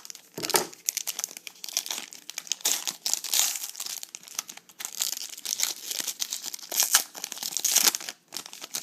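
Trading card pack wrapper crinkling and tearing as it is opened by hand, with quick irregular crackles throughout.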